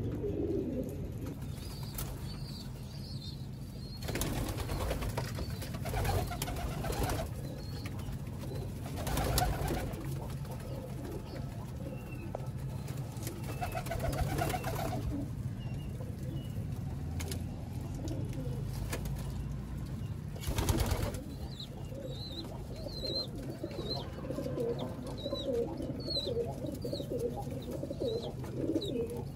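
Domestic pigeons cooing in a loft, the cooing building up near the end, with a few louder rustling bursts of wings and scuffling and some faint high chirps.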